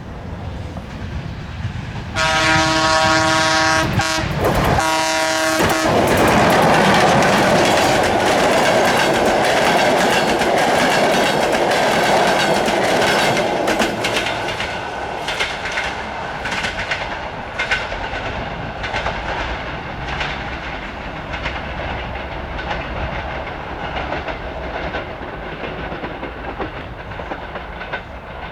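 CFR Class 40 (EA) electric locomotive EA-322 hauling a passenger train: it sounds its horn for a few seconds, then passes close by with loud running noise. The coaches follow with a fading clickety-clack of wheels over the joints of jointed track.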